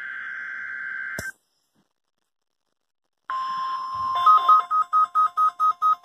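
Midland NOAA weather radio receiver sounding the start of a Required Weekly Test. A hissy digital data burst plays from its speaker and ends with a click about a second in. After two seconds of silence the steady weather radio warning alarm tone starts, and a second later the radio's own alert beeps join in, pulsing about four times a second over the tone.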